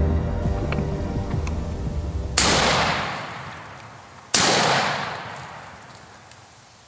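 Two shotgun shots about two seconds apart, each loud and sudden, trailing off in a long echo. Tense background music plays up to the first shot.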